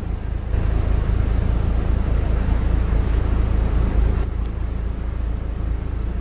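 Heavy diesel engine idling steadily, a low even hum.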